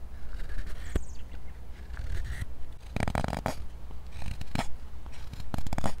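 Carving knife slicing thin shavings off wood by hand: a series of short scraping cuts, the longest and loudest about three seconds in.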